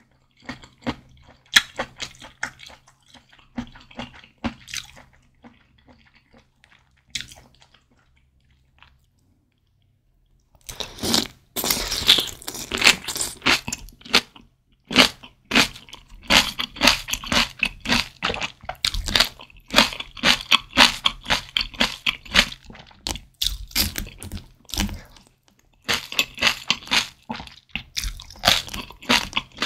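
Close-miked eating sounds of someone chewing leafy greens and enoki mushrooms from spicy malatang broth. It begins with soft, sparse chewing, then from about ten seconds in turns into loud, dense, wet crunching.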